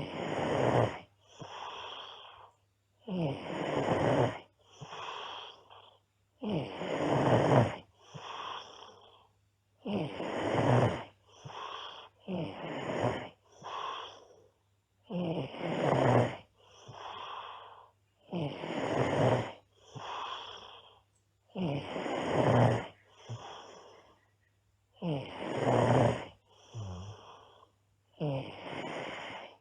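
A girl snoring in a steady rhythm of roughly one breath every three seconds. Each breath brings a longer, louder snore followed by a shorter, softer one.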